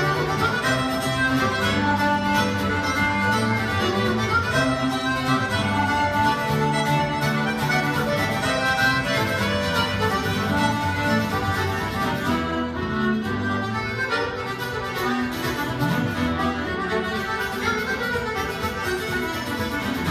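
A lively folk tune played live by fiddle, accordion and acoustic guitar together, with the accordion and fiddle carrying the melody over the strummed guitar.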